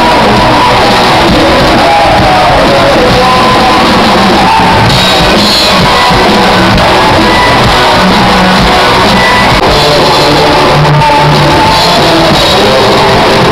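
Live rock band playing loudly, with a singer's voice over the music.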